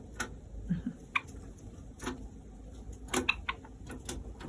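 Irregular light clicks and taps from small pet birds moving about their cage, with a few faint soft low sounds about a second in.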